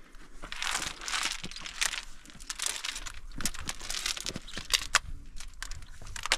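Hiker scrambling over rock: close scuffs and scrapes of shoes and hands on stone, with rustling of clothing and gear and many short clicks.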